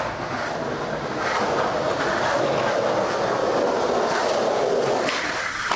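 Skateboard wheels rolling on a concrete path, a steady rumble with a few light clicks from the board.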